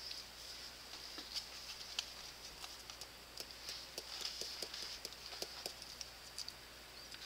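Faint, scattered light clicks and taps of a metal measuring spoon against a plastic spice jar and tub while onion powder is shaken out and measured.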